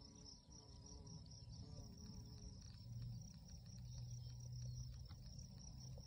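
Faint steady high-pitched chirring of field insects, with the low buzz of a bumblebee at the milkweed flowers coming and going from about three seconds in.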